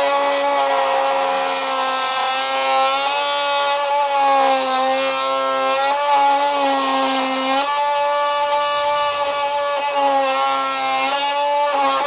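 Ridgid brushless oscillating multi-tool with a wood blade cutting through a wooden 1x1: a super loud, steady high buzz whose pitch sags briefly several times as the blade bites into the wood.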